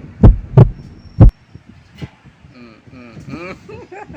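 Heartbeat sound effect: loud low thumps in lub-dub pairs, with a last single beat about a second and a quarter in. Then a run of short, high, wavering whines from a pet.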